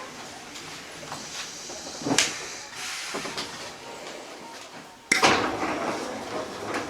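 Inside a Hankyu 8000 series car standing at a station: a low background with a couple of knocks, then about five seconds in a sudden loud rush as the sliding doors open.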